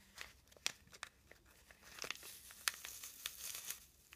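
Faint crinkling and scattered small crackles as a clump of synthetic ice dubbing is pulled out and teased apart by hand, busiest in the second half.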